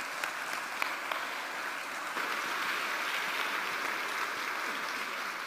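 A large audience applauding, a dense, steady clapping that holds at an even level throughout.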